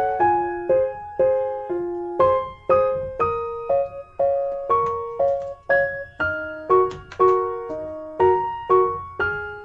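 Background music: a soft piano melody of single struck notes, about two a second, each fading before the next.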